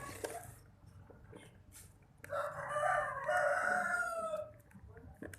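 A rooster crowing once, a single drawn-out call of about two and a half seconds starting about two seconds in.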